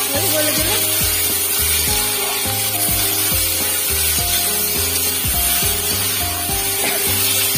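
Background music with held notes and a regular low beat, over a spatula scraping and stirring potatoes and taro frying in a kadai.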